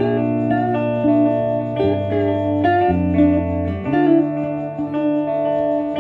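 Two electric guitars played together: low held notes that change about once a second under a picked melody line.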